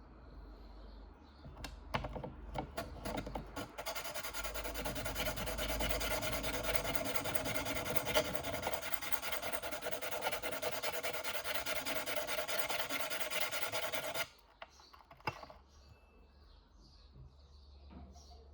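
Small abrasive sharpening stone rubbed on the prongs of a pole-spear paralyzer tip: a few clicks, then about ten seconds of continuous rasping with a ringing tone in it, which stops suddenly, followed by a couple of clicks.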